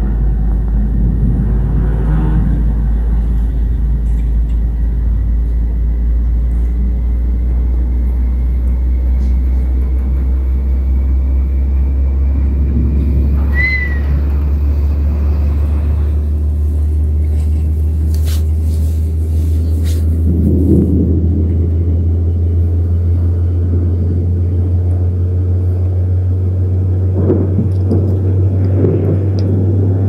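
Thunder rumbling: a deep, continuous low rumble that swells several times.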